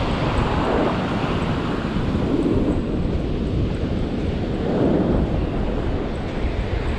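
Wind buffeting the microphone in a steady rumble, swelling a few times.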